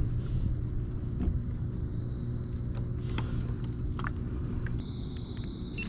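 Steady low rumble of a motor vehicle, with a high, steady insect-like trill that comes back in strength near the end and a few light clicks.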